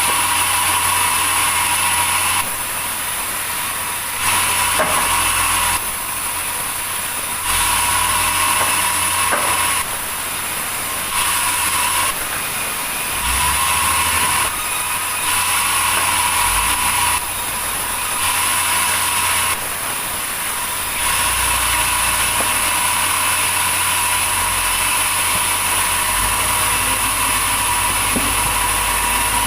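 Sawmill saw running through a log, its noise jumping every second or two between a louder, hissing cutting sound and a quieter running sound, then holding steady at the louder level for the last third.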